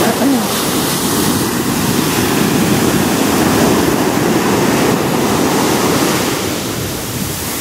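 Ocean surf breaking and washing up a sandy beach, a steady wash of wave noise.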